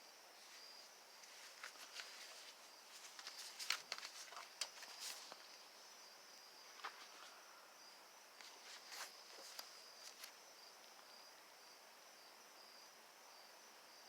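Crickets chirping steadily in a high, pulsing trill, with scattered light clicks and knocks from small parts being handled during the first two-thirds.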